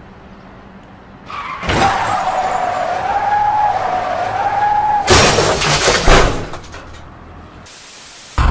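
Car tyres skidding with a wavering squeal for about three and a half seconds, then a crash: a loud impact about five seconds in and another a second later.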